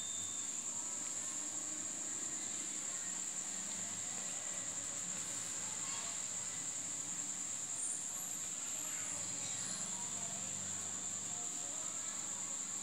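A cricket trilling steadily at a high, unchanging pitch.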